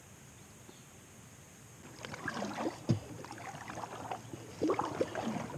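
Kayak paddle strokes starting about two seconds in: the blades dipping and splashing through the water with gurgling drips, and one sharp knock about three seconds in.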